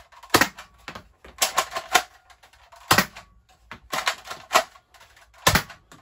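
Plastic clacks and clicks of a modified Nerf Roughcut pump-action blaster being worked by hand: short runs of rattly clicking with single sharp knocks about half a second in, near three seconds and about five and a half seconds in.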